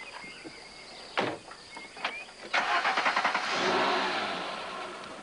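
A car door shuts about a second in. About two and a half seconds in the car's engine starts and runs, loudest just after starting and then slowly fading.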